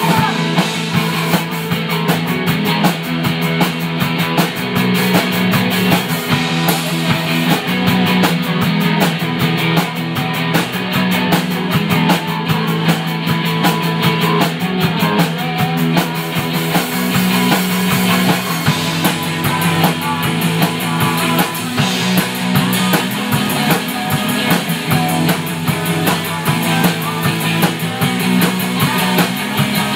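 Live rock band playing punk-style rock: distorted electric guitars over a Pearl drum kit, with steady drumming and cymbals. The cymbal strokes come through more plainly about two-thirds of the way in.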